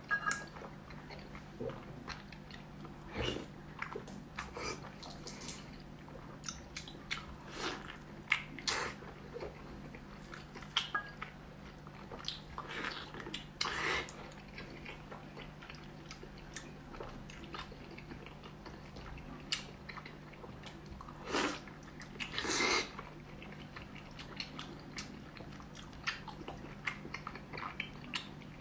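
Close-up biting and chewing of soft, fatty braised pork belly: irregular short mouth smacks, with a couple of louder ones a little over two-thirds through, over a faint steady low hum.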